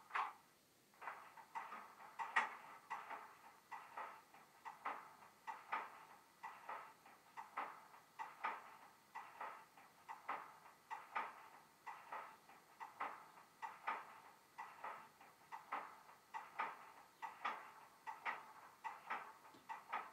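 Model Class 08 shunter's sound decoder playing the diesel engine idle through a LokSound micro and a small 20x20x7 mm speaker. A steady, faint beat of about three pulses a second, thin and without low end.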